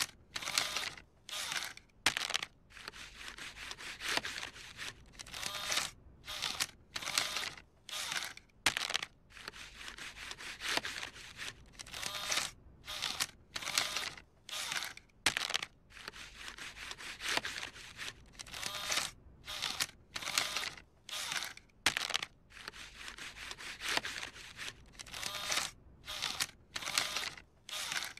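Bill slot of a cartoon coin-operated kiddie ride pulling in a crumpled dollar bill and pushing it back out, over and over: the machine will not accept the bill. A rapid run of short noisy bursts, about one or two a second, with brief gaps between.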